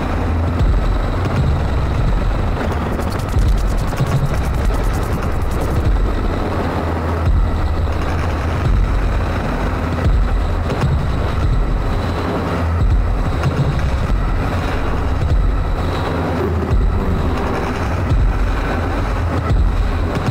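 Electronic noise music: samples from a Bastl MicroGranny sampler looped and mangled through a Make Noise Strega, making a dense, unbroken rumbling texture with a heavy low drone and scattered short pulses.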